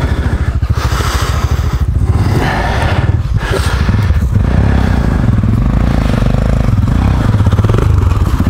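Single-cylinder engine of a KTM 640 Adventure motorcycle running under way, a steady run of firing pulses that gets a little louder about halfway through.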